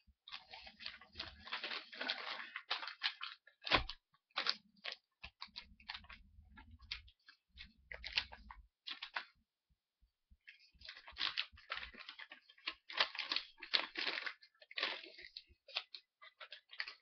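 A packaging bag crinkling and rustling in irregular bursts as it is handled and opened, with a short knock about four seconds in and a brief pause in the middle.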